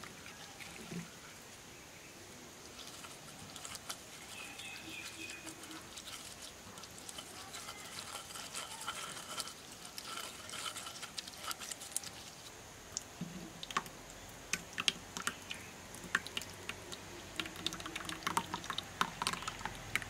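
Wet grated rose apple pulp being pressed and scraped through a wire mesh strainer, with irregular small clicks and taps on the mesh and juice dripping into a clay bowl. The taps grow busier in the second half.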